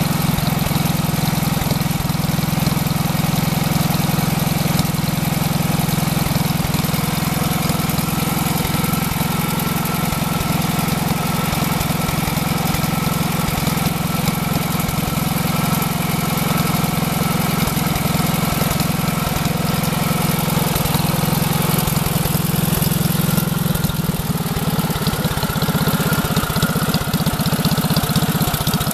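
Old Allis-Chalmers tractor engine powering a homemade hydraulic log splitter, running steadily.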